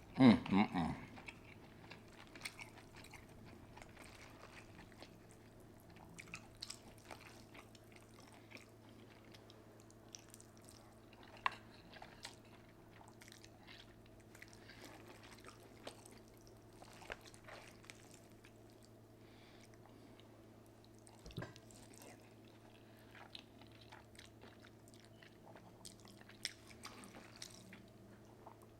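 Close-miked chewing and wet mouth sounds of someone eating a saucy seafood boil with ramen noodles: scattered smacks and clicks over a faint steady hum, with a louder burst right at the start.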